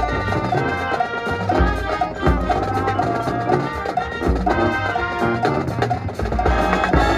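High school marching band playing loudly: brass section over drumline and bass drums.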